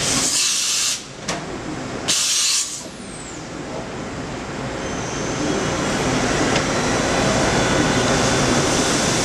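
Matsuura MC-500V2 CNC vertical machining center running, with two short bursts of hissing near the start, then a steady machine sound carrying a faint high whine that slowly grows louder.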